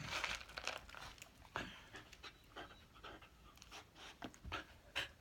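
Dog panting in quick, short breaths.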